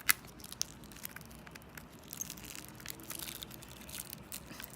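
Hands working at opening a sealed CD album's packaging: scattered crinkles, scratches and sharp clicks, with one louder click just after the start.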